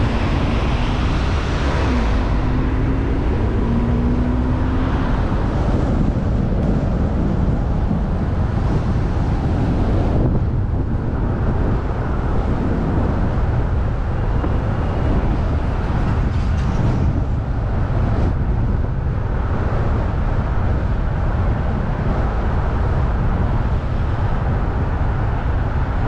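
Car driving on city roads: a steady low rumble of engine, tyres and wind, with the hissing upper part thinning out about ten seconds in.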